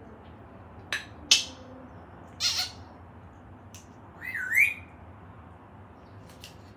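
African grey parrot making a string of short sounds: two sharp clicks about a second in, a harsh squawk a little later, and a short dipping-then-rising whistle past the four-second mark.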